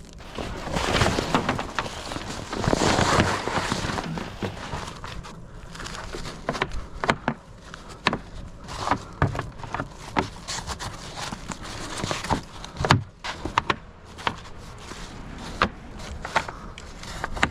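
Rustling handling noise for the first few seconds, then scattered sharp clicks and knocks, like covers or gear being handled and walked around.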